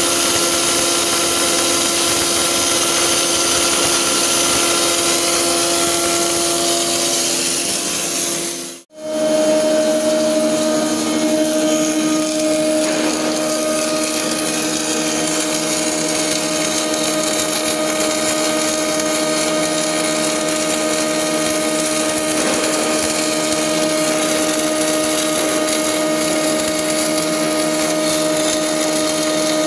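Wire-fed (MIG/MAG) welding arc from a gantry welding machine, running steadily as an even hiss with a steady hum beneath it. It cuts out for a moment about nine seconds in and then starts again.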